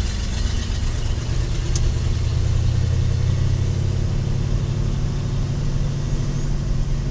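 Ford 351 Windsor (5.8 L) V8 of a 1986 Ford F250 running under way, a steady low drone. The engine is freshly rebuilt and on its first real test drive.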